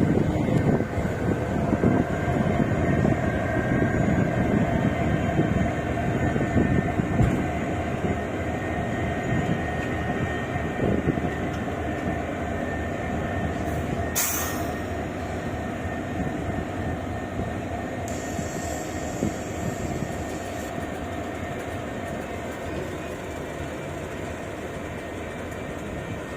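Passenger train rolling out of the station: a steady rumble of wheels and coaches on the track that slowly dies away, with faint wheel squeal. A brief sharp sound cuts through about halfway, and a short high hiss follows later.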